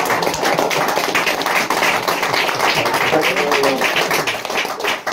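Small audience clapping at the end of a spoken-word poem: many overlapping hand-claps, dipping briefly near the end.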